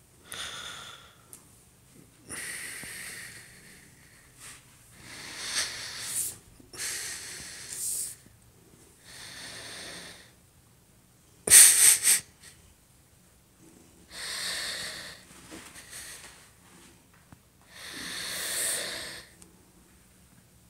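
Breathy, wheezing exhalations from a person, in about seven separate bursts of up to a second each. One burst a little before the middle is sharper and much louder than the rest.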